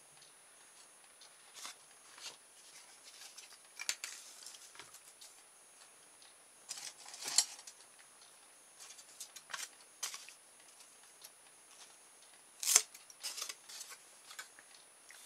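Styrofoam plate pieces and foam blades being handled: scattered short crackles, squeaks and clicks, with two louder ones about seven and thirteen seconds in.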